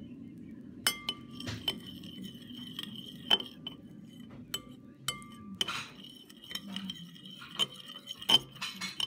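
A utensil stirring sticky slime in a bowl, clinking against the bowl at irregular moments, with short ringing tones after several of the knocks. The loudest clink comes about eight seconds in.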